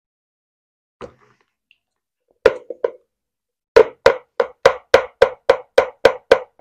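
A teaspoon knocked against the rim of a clear plastic measuring jug: a couple of single knocks, then a steady run of about four knocks a second. The plant-based mascarpone on the spoon is so dense that it will not drop off.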